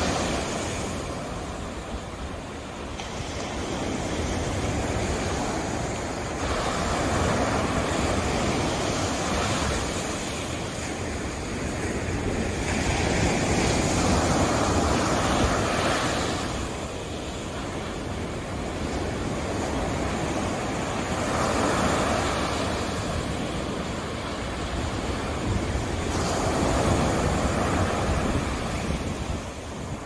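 Sea surf breaking on a sandy beach: a continuous rushing wash that swells and fades every few seconds as each wave comes in and runs up the sand.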